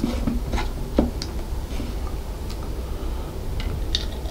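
A series of light clicks and taps from a beer can and a glass beer mug being handled, with the can brought up and tipped toward the mug near the end. The clicks are irregular and spaced out, with a sharper, brighter tap near the end.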